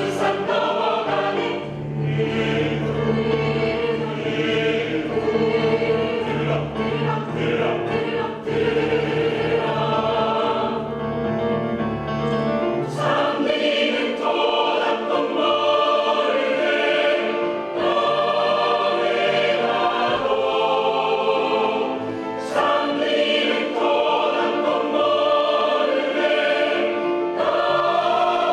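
Choir singing a choral piece, with a low held tone under the voices for the first half that stops about halfway through.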